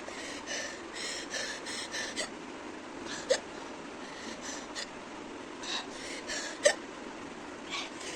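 A woman hiccupping: two sharp hiccups a few seconds apart, with short noisy breaths between them. The hiccups are brought on by eating very hot raw chillies.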